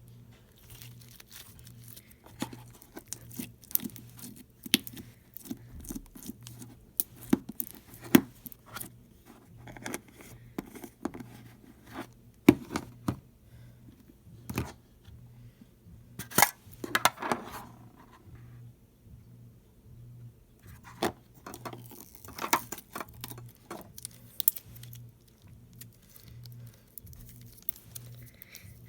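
Slime being worked by hand: irregular sticky clicks, pops and crackles, some sharp and loud, with a denser crackling stretch a little past the middle.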